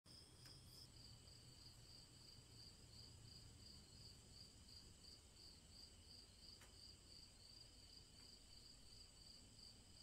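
Faint crickets chirping in a steady, evenly pulsed rhythm.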